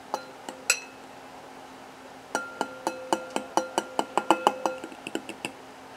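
Metal utensil clinking against a ceramic bowl while stirring freeze-dried roast beef in hot water. A few light taps come first, then a quick run of clinks, about five a second, for roughly three seconds, the bowl ringing briefly with each.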